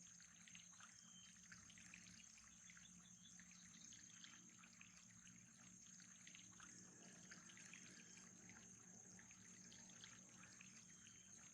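Faint, steady trickle of water with fine crackling, over a constant low hum and a thin high whine.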